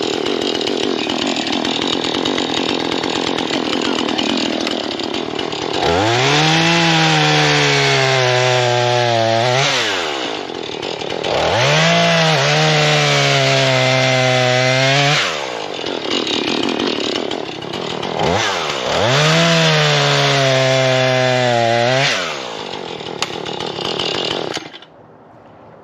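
Husqvarna 440 two-stroke chainsaw running: it idles, then is throttled up to full speed three times for a few seconds each, pulling through wood as it cuts, and drops back between cuts. The engine is shut off near the end.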